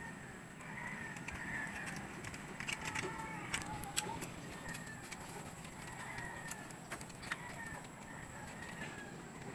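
Chickens calling in the background, with a few sharp knocks and clicks from bamboo poles being handled and tied, bunched about three to four seconds in and again about seven seconds in.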